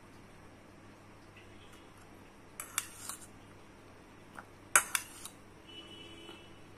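Steel spoon clinking against a bowl while cutting through a syrup-soaked gulab jamun: a few light clicks about three seconds in, then a sharper clink near five seconds.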